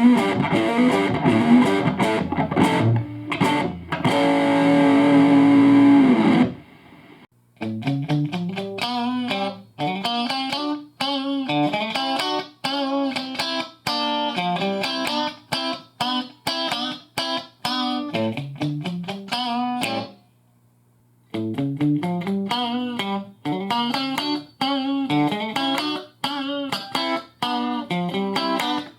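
Electric guitar played through an amp loaded with a Celestion 12-inch ceramic-magnet speaker. A driven lead line ends on a long held note, then after a short pause a picked riff of separate notes with climbing bass steps repeats, stopping briefly about twenty seconds in and starting again.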